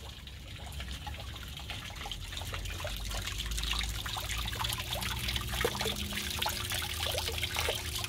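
Water trickling and splashing from a hanging ceramic pot into the stone-lined basin of a garden water feature, growing louder over the first few seconds.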